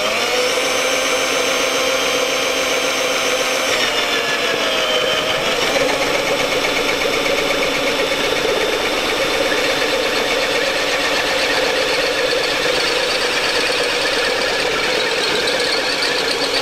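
Cordless drill running steadily with a spade bit boring a hole in a metal plant pot. The motor's whine dips in pitch about four to five seconds in as the bit bites, then runs on with a rougher, grinding edge.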